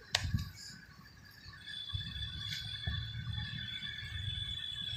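Faint open-air ambience: a sharp click just after the start, then a low rumble with a thin, steady high tone from about two seconds in.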